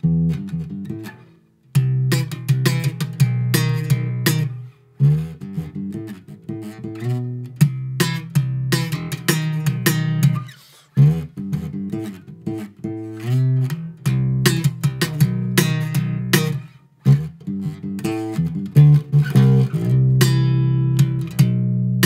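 Background music of plucked guitar notes over a bass line, with a few short breaks between phrases.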